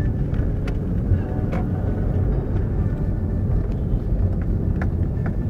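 Steady low road and engine rumble of a moving car heard from inside the car, with a few faint clicks.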